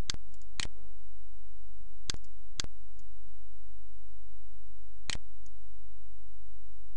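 Computer mouse button clicking five times, in two quick pairs and then a single click, over a steady low hum.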